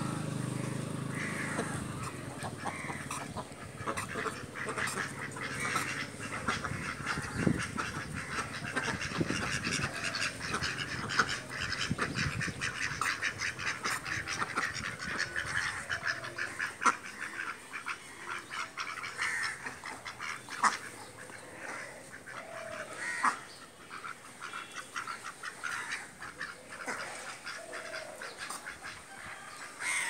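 A flock of domestic ducks quacking and chattering without pause, a dense run of short calls with a few louder single quacks standing out.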